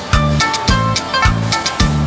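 Background music with a steady, upbeat rhythm: a bass note and a sharp percussion hit on every beat, about two beats a second.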